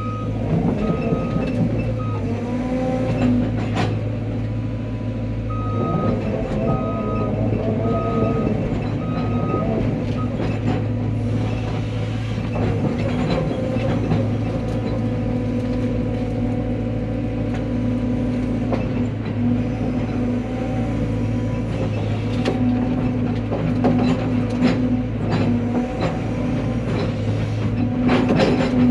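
Cat 320 excavator's diesel engine running steadily under hydraulic load, with scattered sharp knocks and cracks as the machine works. Two runs of short, evenly spaced beeps sound, one near the start and one between about six and ten seconds.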